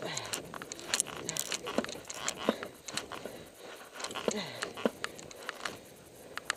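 Scattered clicks, knocks and snow crunching as a stuck or tipped snowmobile is handled in deep powder, with no engine running. There are two short falling grunts, one at the start and one about four seconds in.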